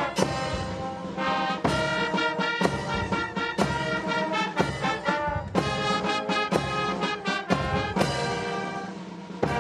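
Brass band music: held brass chords over a sharp, steady beat about once a second.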